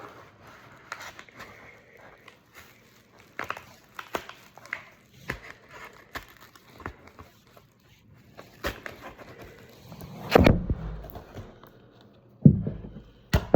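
Package being handled and opened: scattered clicks and rustles, then a loud thump about ten seconds in and another near the end.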